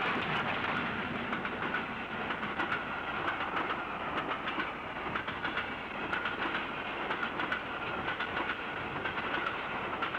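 Steam train running along the line: the LNER A3 locomotive Flying Scotsman hauling its coaches, with a steady rush of running noise and the wheels clicking over the rail joints.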